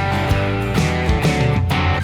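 Background music: a guitar-led track with strummed chords and a steady beat.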